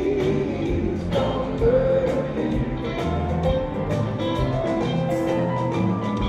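Live rock band playing a slow country-flavoured song: electric guitars, bass, keyboards and drums, with a gliding guitar line in the first couple of seconds.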